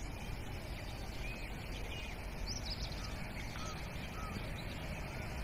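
Birds giving short, scattered chirps and whistles over a steady low rumble.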